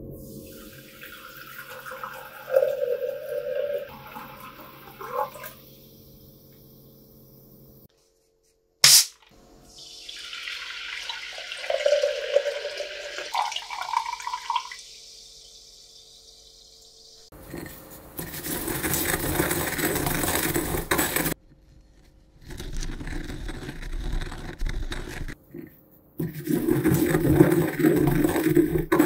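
Water sounds in several short takes separated by abrupt cuts: liquid pouring with a pitch that rises as it goes, then bursts of rushing water.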